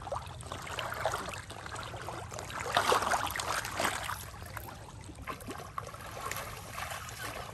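River water splashing and trickling, loudest about three seconds in.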